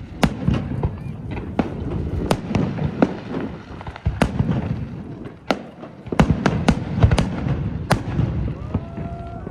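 Fireworks going off in a rapid, irregular string of sharp bangs and crackles over a low rumble.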